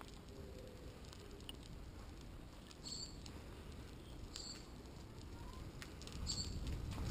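Low rumble of wind and tyre noise during a slow bicycle ride, growing a little louder near the end, with short high squeaks a few times: about three seconds in, again at four and a half seconds, and twice in quick succession near the end.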